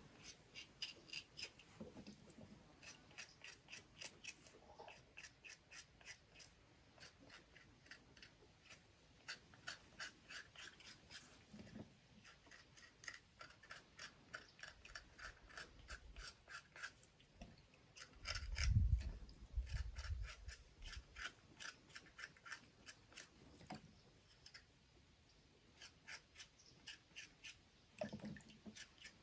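Faint, quick, even cutting strokes, about three or four a second, coming in runs with short pauses, as in food being cut during kitchen prep. A louder low bump comes about two-thirds of the way through.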